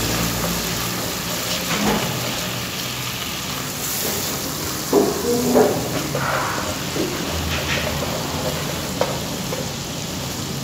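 Food frying and sizzling in a pan, a steady hiss, with a few short louder sounds about halfway through.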